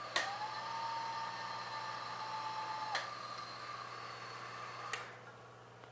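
Acer knee mill's spindle running, with a second motor whine that starts with a click, holds steady for about three seconds and stops with a click while the table is lowered to bring the tool out of the bore. About five seconds in the mill is switched off with a click and the running sound falls away.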